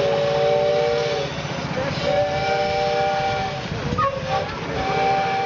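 Steam whistle of a live-steam miniature locomotive blowing three blasts of about a second and a half each, each sounding several tones at once, the last starting near the end, over a steady hiss of steam.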